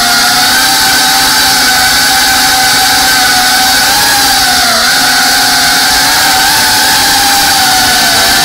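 Small FPV quadcopter's brushless motors and propellers giving a steady high whine, heard from the camera on board, with a brief dip in pitch about five seconds in.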